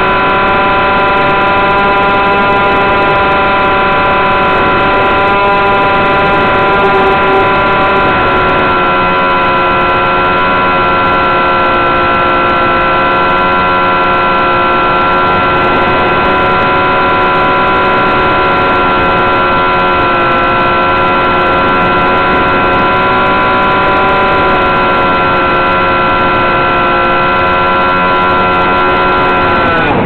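Electric motor and propeller of a Skyking 959 RC model plane, heard from a camera mounted on the plane: a steady, high whine over rushing air, shifting slightly in pitch about eight seconds in and falling away sharply near the end as the throttle comes off.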